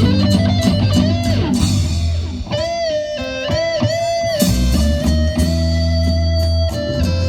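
An instrumental ensemble plays a melody led by plucked guitar over held bass notes. In the middle the lead line wavers up and down in pitch, and the bass drops out briefly before coming back in.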